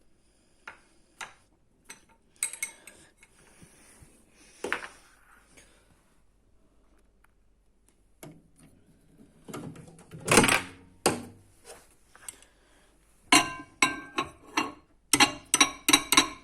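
Kitchen utensils and dishes clinking and knocking: a few scattered knocks, a louder clatter about two-thirds through, then a quick run of ringing clinks near the end.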